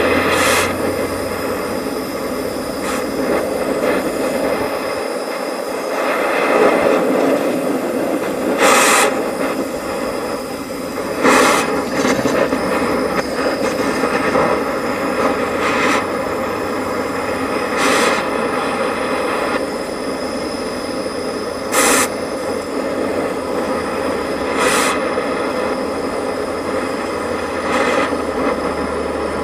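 Oxy-fuel cutting torch flame running steadily against stainless steel compressor mounting bolts, with about eight short sharp cracks spaced a few seconds apart.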